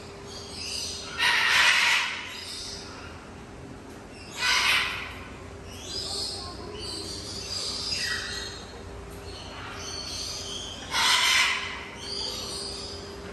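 Moluccan cockatoo giving harsh squawks: a loud one about a second in, another about four and a half seconds in, and a third near the end, with softer, shorter calls between them.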